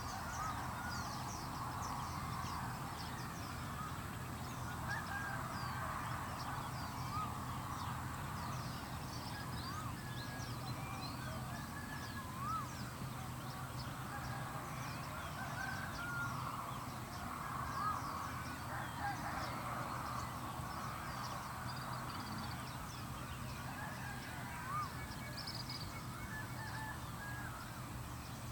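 A dense chorus of many birds chirping and calling, with thin high chirps over lower, short arched calls. A steady low hum runs underneath.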